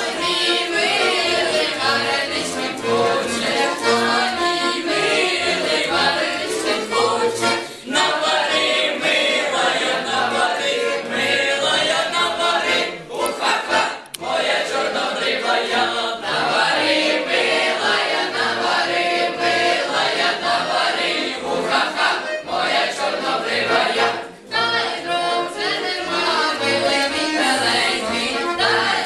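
A group of girls singing together to a live accordion accompaniment, with the accordion's bass notes pulsing underneath.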